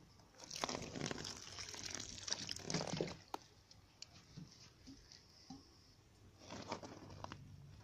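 Water poured from a watering can onto the soil of a small plastic pot, splashing and trickling for about two and a half seconds, then stopping. Near the end, a short rustle as the plastic pot is handled.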